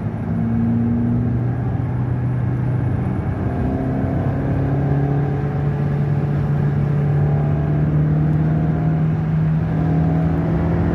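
Tofaş Doğan SLX four-cylinder engine pulling hard under full throttle, its note climbing slowly and steadily as the car gains speed in one gear.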